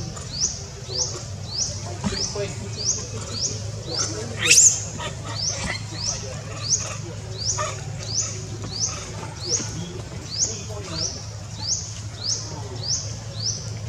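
A high chirp repeating steadily about twice a second over a low steady hum, with one brief shrill squeak about four and a half seconds in, the loudest sound.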